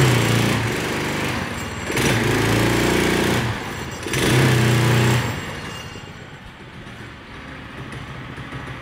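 Small single-cylinder gas engine revved hard three times in quick succession, then dropping back to a quieter idle from about halfway through.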